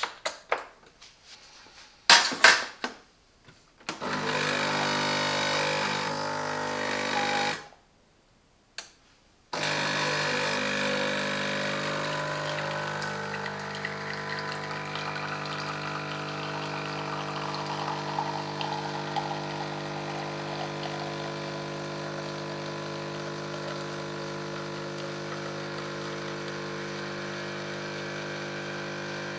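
A few sharp clicks about two seconds in, then a small electric kitchen appliance running with a steady hum. It stops for about two seconds, then runs on evenly.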